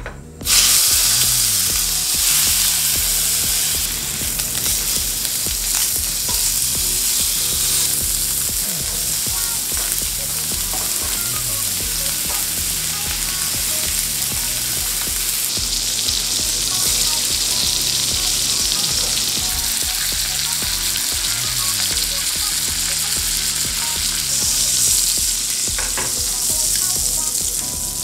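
Beef steaks searing in a hot oiled nonstick frying pan: a loud, steady sizzle that starts suddenly about half a second in as the meat goes into the pan. Butter later fries and foams alongside the steaks.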